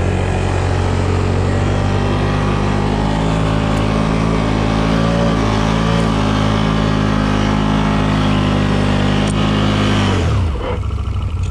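Tracked Can-Am ATV engine held at high, steady revs while churning through deep snow, then the revs drop sharply about ten seconds in as the machine stops on a steep spot it can't climb.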